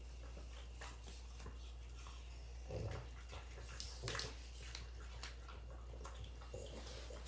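French bulldogs crunching and chewing apple slices fed by hand: faint, crisp, irregular crunches, the strongest about three and four seconds in.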